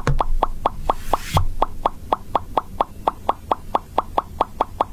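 Fingertips drumming on a wooden cutting board: an even run of short, hollow taps, about five a second, over a faint low hum. A brief whoosh and a soft thump come about a second in.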